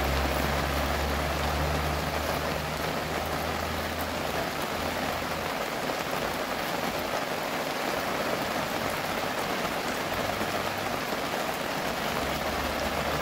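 Steady rain falling, an even hiss with fine drop ticks. A low hum underneath fades out about four to five seconds in.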